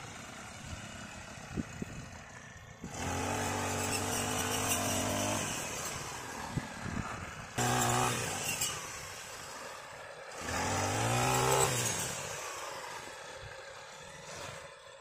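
Petrol brush cutter engine revving up in three bursts and sagging back between them as its blade cuts through tall fodder sorghum stalks, with a few sharp clicks from the blade striking stalks.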